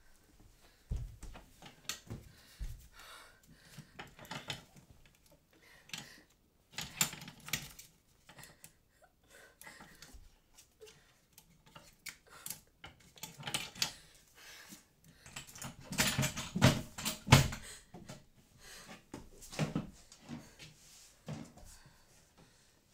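Padlock on a cabinet being worked at by hand: irregular metal clicks and rattles, heaviest about two thirds of the way through.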